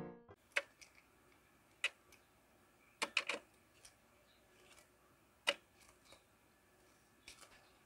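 Light, sharp clicks and taps: a Eurasian jay pecking at sunflower seeds on a window-ledge feeder. They come singly, with a quick cluster of three about three seconds in and fainter taps near the end.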